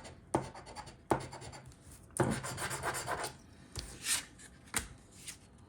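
A coin or scraper rubbing the latex coating off a paper scratch-off lottery ticket, in a run of short scraping strokes with brief pauses between them.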